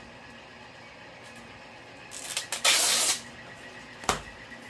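Packing materials being handled while unboxing: about two seconds in, roughly a second of rustling and sliding, then a single sharp knock near the end.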